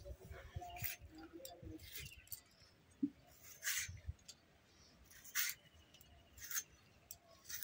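Skin being stripped off green padmaman vegetable stalks against a boti blade: a series of short, faint rasping strips, one every second or two.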